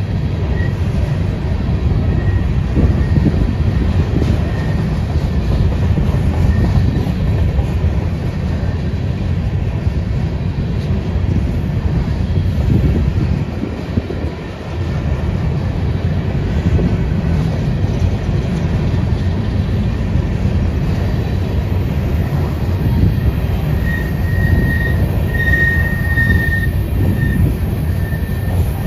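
Freight train rolling past, a steady rumble of wheels on the rails. A high-pitched wheel squeal comes and goes and is loudest about 25 seconds in.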